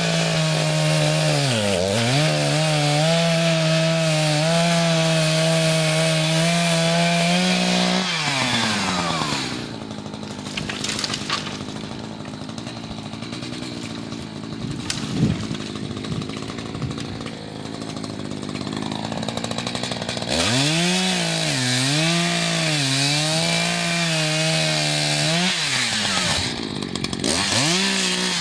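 Two-stroke chainsaw cutting wood at full throttle, its pitch sagging and recovering as the chain bites. About 8 s in it falls to idle, with a few sharp knocks, then revs back up to cut again about 20 s in. It drops once more briefly and revs up near the end.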